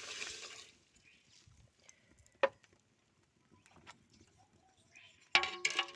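A brief hiss of granulated sugar being poured into the pot, cutting off under a second in. Then near silence with a single sharp click, and plucked-string background music starts near the end.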